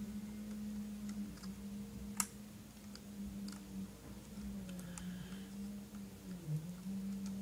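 Small clicks and ticks of toy robot parts being handled and fitted by hand during reassembly, with one sharper click about two seconds in. A steady low hum runs underneath.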